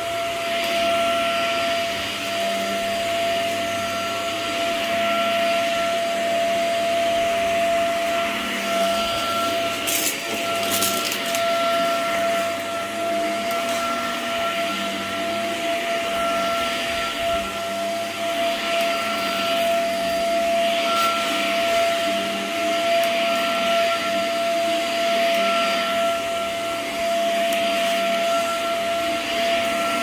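Shark upright vacuum cleaner running on carpet: a steady motor whine over rushing airflow that swells and fades every few seconds as the floor head is pushed back and forth. A couple of sharp clicks about ten seconds in.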